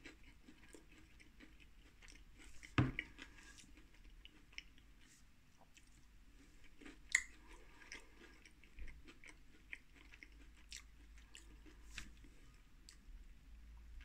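A person chewing a mouthful of battered dill pickle fries, with soft mouth clicks and a couple of sharper clicks about three and seven seconds in. The batter is not very crunchy.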